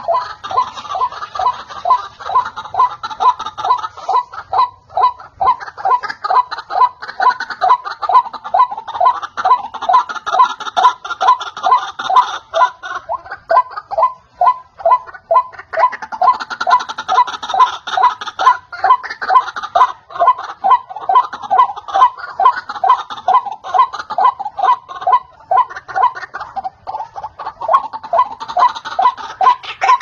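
White-breasted waterhen (ruak-ruak) calling, played as a bird-hunting lure call: a long, unbroken run of repeated 'ruak' notes, about two to three a second.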